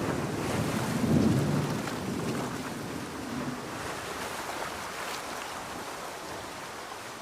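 Steady heavy rain with a roll of thunder that swells about a second in and dies away over the following seconds.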